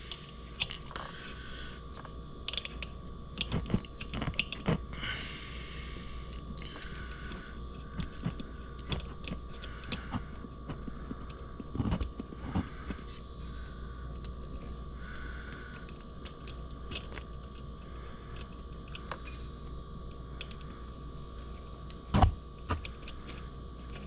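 Small metal parts of a refrigerant line tap valve clicking and scraping as it is clamped around a copper suction line and its screws are turned by hand, with two louder knocks near the end. A faint steady hum runs underneath.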